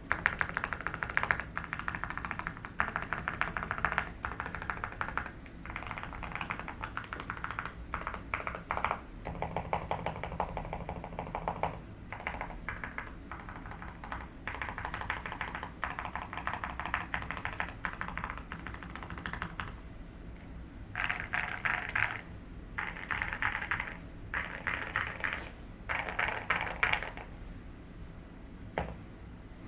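Typing on a Monsgeek M1W mechanical keyboard with lubed Gateron Oil King linear switches and Cerakeys ceramic keycaps, the case tape- and foam-modded: fast runs of keystrokes in bursts with short pauses. One stretch in the middle sounds deeper, and the typing ends with a single keystroke near the end.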